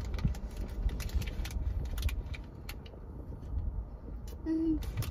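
Crumpled foil ice-cream wrapper crinkling and crackling as a plastic spoon digs into it, quick crackles that thin out after about half the time, over a low steady rumble.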